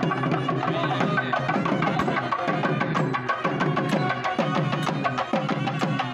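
Live South Indian temple music: thavil drums struck in a fast, steady rhythm with heavier beats about twice a second, under a sustained nadaswaram melody.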